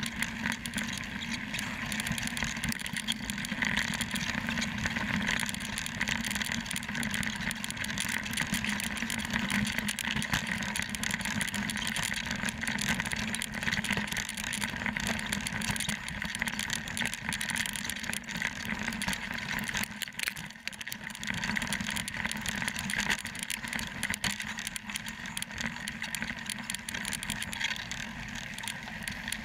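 Mountain bike riding over a rocky dirt trail: steady tyre noise on gravel with many small rattles and clicks from the bike, picked up by a GoPro camera worn by the rider.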